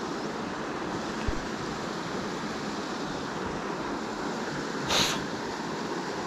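Steady rush of river water flowing past. About five seconds in there is a short hissing swish, and just after one second in a faint low knock.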